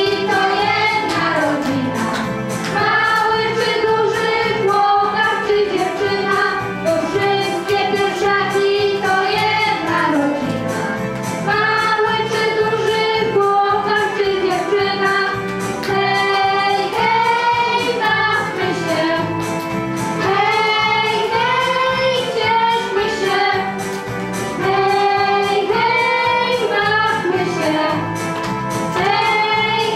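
A small group of young girls singing a song together into a microphone.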